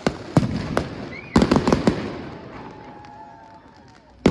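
Fireworks display: sharp aerial shell bangs, a few spaced ones and then a quick cluster in the first two seconds, dying away into a fading rumble before a fresh bang right at the end.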